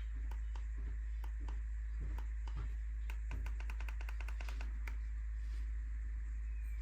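A steady low electrical hum with a run of sharp clicks over it: scattered at first, then a quick series of about seven a second from about three to five seconds in.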